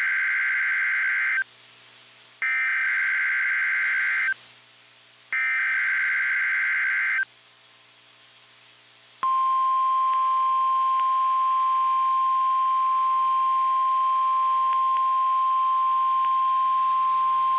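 NOAA Weather Radio Emergency Alert System activation. Three screechy digital SAME header data bursts, each about two seconds long with short gaps between them, are followed by the single-pitch 1050 Hz warning alarm tone. The alarm tone holds steady for about nine seconds and signals an incoming tornado watch alert.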